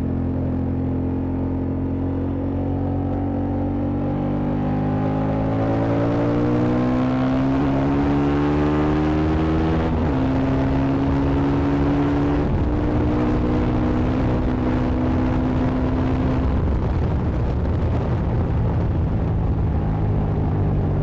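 Honda XL750 Transalp's 755 cc parallel-twin engine accelerating hard, its revs climbing steadily, then holding at high speed. Near the end the engine note thins out as the throttle eases off and wind and road noise take over.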